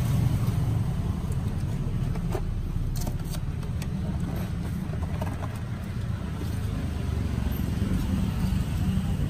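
Steady low rumble of street traffic, with a few light clicks about two to three seconds in from metal tongs and a paperboard box as churros are packed.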